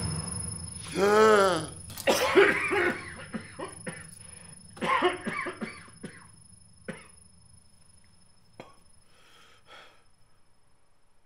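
A man wakes with a loud voiced gasp that rises and falls in pitch, then coughs hard in two fits, breathing raggedly. Two small knocks and softer breaths follow as he settles.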